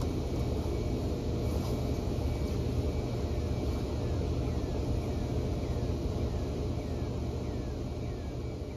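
Steady low rumble with faint short falling chirps repeating about twice a second, starting to fade near the end.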